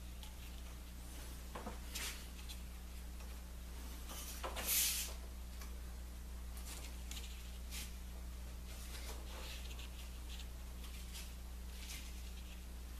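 Thin baltic birch plywood strips being handled during a glue-up: scattered light rubbing and soft knocks of wood on wood, with one louder brief scrape about five seconds in.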